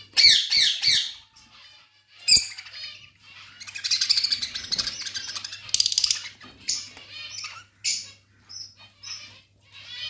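A flock of caged budgerigars chirping and warbling in busy chatter, with three loud squawks in the first second and a sharp call a little after two seconds. A faint steady low hum runs underneath.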